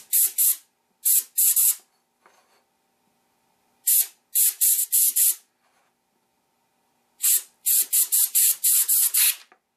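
Compressed-air blow gun fired in short hissing blasts, in four clusters of a few puffs each, blowing a slip-cast piece loose from its plaster mold.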